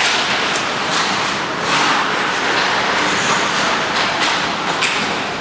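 Ice hockey practice on a rink: steady scraping and hiss of skates on the ice, with a few sharp clacks of sticks and pucks.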